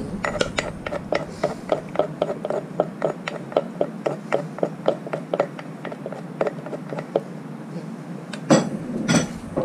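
Wooden pestle pounding and mashing a thick fermented-soybean chili paste in a bowl, a steady knock about three to four times a second. Near the end a metal spoon clatters against the bowl twice.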